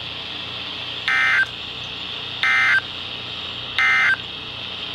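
Weather radio sending the EAS end-of-message data: three short raspy digital bursts, evenly spaced about a second and a half apart, over a steady radio hiss.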